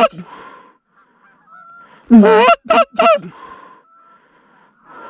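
Canada geese honking: a loud run of honks about two seconds in followed by two short ones, with fainter honks from more distant geese in between.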